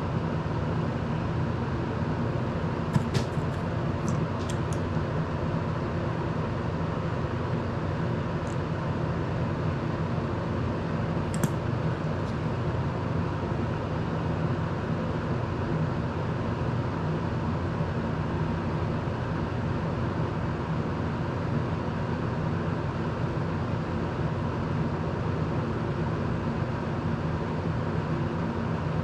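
Desk circulator fan running steadily with a constant whirring hum. A few small sharp clicks come about three to five seconds in, and one more around eleven seconds.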